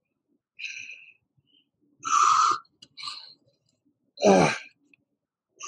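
A man breathing hard through a rotating side plank: a series of short, forceful exhales about a second apart. The loudest, about four seconds in, is voiced like a grunt.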